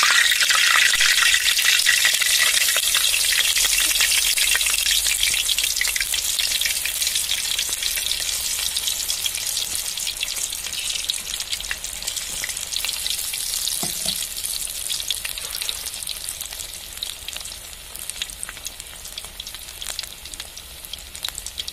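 Batter-coated cauliflower florets sizzling and crackling in hot deep-frying oil, loudest just after they go in and slowly dying down as the bubbling settles and the florets turn crisp.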